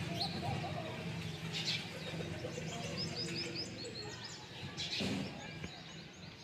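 Small birds chirping, with a quick run of about five high chirps near the middle, over a steady low hum.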